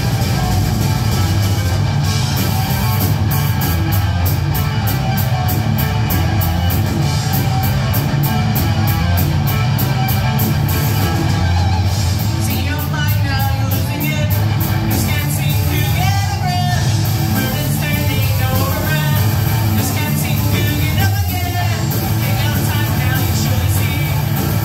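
Live rock band playing at full volume: electric guitars, bass guitar and drums, with a steady beat. Sung vocals come in about halfway through.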